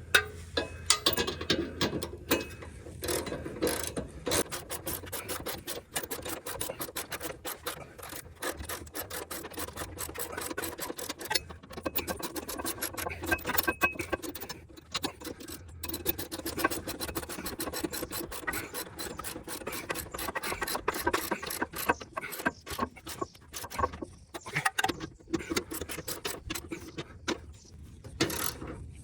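Hand ratchet wrench clicking rapidly in long runs as it tightens the trailer hitch mounting bolts, with a few short pauses between runs.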